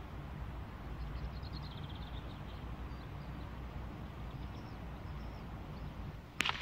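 A steel pétanque boule from a shot strikes with one sharp, loud clack near the end, over a steady low outdoor rumble; a few bird chirps come about a second in.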